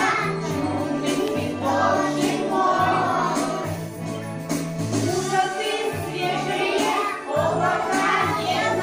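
A group of young children singing a song together over a recorded backing track with a steady bass line.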